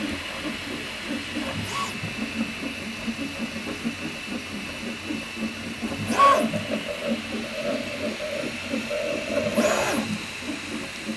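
Prusa i3 MK3S+ 3D printer at work printing small cylinders: its stepper motors buzz and chirp in quickly changing tones under a steady fan hiss with a faint high whine. Three louder swishes come a few seconds apart as the print head moves quickly between the parts.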